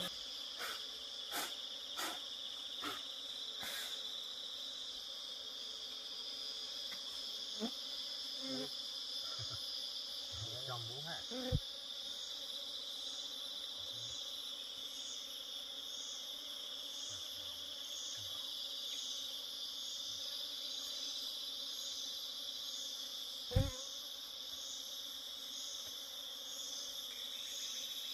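Insects calling in a steady, continuous high-pitched drone, joined from the middle on by a second pulsing note about once a second. A few sharp knocks cut through: a quick run near the start, one around the middle, and the loudest late on.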